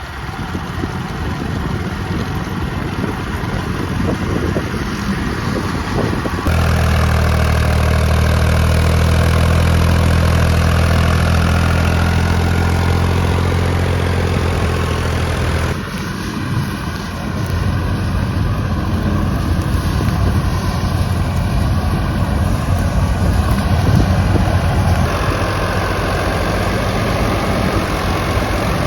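Farm machinery engine running steadily. The tone changes abruptly about six, sixteen and twenty-five seconds in.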